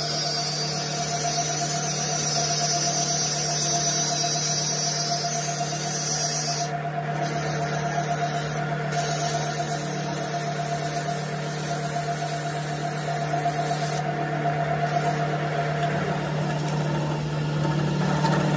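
Metal lathe running with a steady hum while emery cloth is held against the spinning steel part, giving a high abrasive hiss. The hiss breaks off briefly a few times and fades out near the end while the hum goes on.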